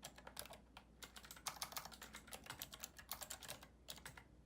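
Typing on a keyboard with clicky Cherry MX Blue key switches: an irregular run of quick key clicks, several a second, with brief pauses between bursts.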